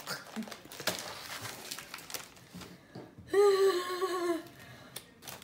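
Foil chip packet crinkling with scattered clicks as it is handled. A little over three seconds in, a girl's voice makes one held vocal sound, about a second long, that dips slightly at its end.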